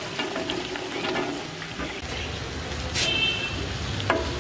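Chopped cauliflower tipped into a steel pot of potatoes frying in masala, with sizzling, scattered clicks and a ringing metal clink about three seconds in. A low rumble runs underneath from about halfway.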